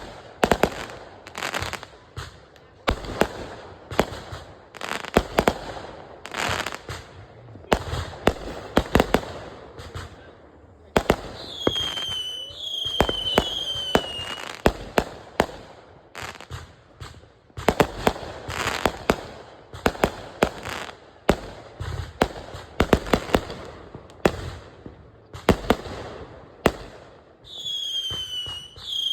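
Consumer fireworks going off in rapid succession: a steady run of sharp bangs and pops, with a few whistles falling in pitch about halfway through and again near the end.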